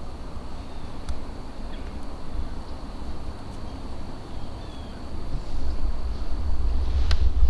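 Wind buffeting the microphone outdoors, a low rumble that grows stronger a little past the middle. A few faint short high chirps and a couple of faint clicks sound through it.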